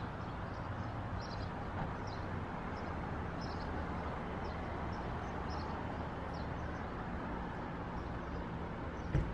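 Steady outdoor background noise with a faint low hum, with faint high chirps of small birds repeating throughout. There is one short click near the end.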